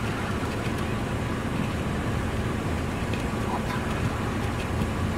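A steady low rumble, with faint scattered clicks of Canada geese's bills picking corn out of a plastic pail.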